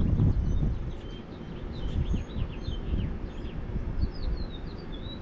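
Several small birds chirping with short, high, quick chirps, over a steady low rumbling noise.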